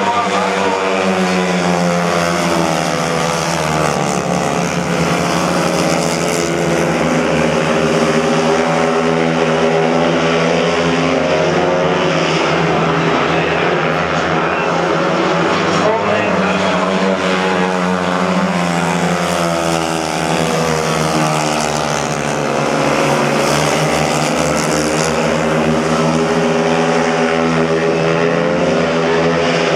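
Speedway motorcycles' single-cylinder engines racing, their pitch rising and falling over and over as the riders rev through the bends and past the camera.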